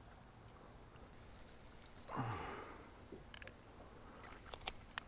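Faint clinks and light jangling of a spinnerbait's metal blades and fishing pliers as the trailer hook is worked out of a freshwater drum. A short falling sound comes about two seconds in, and the clinks come quicker near the end.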